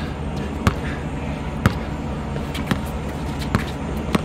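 Basketball being dribbled, bouncing sharply about once a second, over a steady background hiss.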